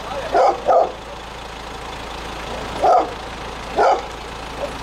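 A dog barking: two quick barks, then two single barks about a second apart, over the steady low running of a Caterpillar backhoe loader's idling engine.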